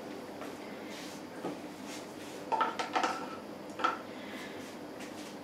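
A few scattered light clinks and knocks of stainless-steel food-processor accessories being handled and set down, with a brief metallic ring around the middle.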